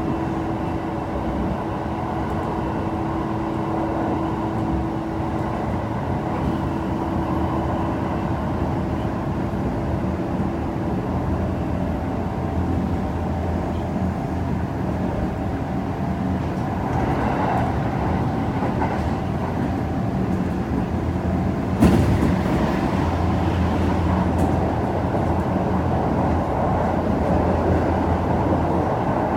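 Kintetsu 2610-series electric train running at speed, heard from inside the passenger car: steady rolling noise of wheels on rail with motor hums, the low hum growing stronger about a third of the way in. One sharp knock about three-quarters of the way through stands out as the loudest moment.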